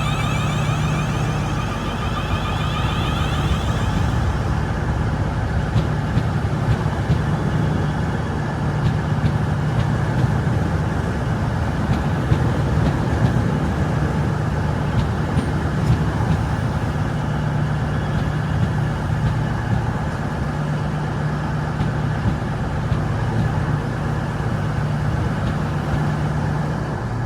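Class 450 Desiro electric multiple unit running, with a steady low hum. Its traction motors whine, changing pitch in stripes during the first few seconds before the whine fades.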